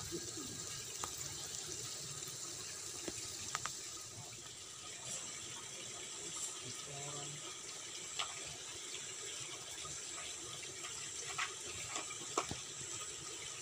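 Water running steadily with a continuous hiss, with a few faint clicks scattered through it.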